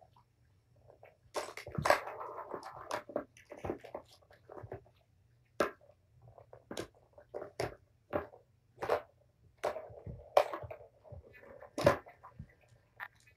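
Balls rolling and clacking around an orange plastic Tower of Tracks cat toy as kittens bat at them: a run of sharp plastic clacks, roughly one a second, with a rolling rattle about two seconds in and again near the end.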